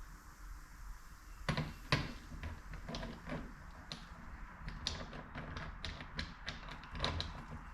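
Small steel transmission parts (gears, washers and C-clips) clicking and tapping against each other and the shaft as they are handled and fitted, with two sharper knocks about a second and a half and two seconds in and a run of lighter ticks after.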